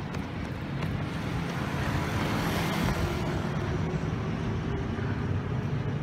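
City road traffic: vehicle engines running with a steady hum and road noise, swelling as a vehicle passes about two to three seconds in.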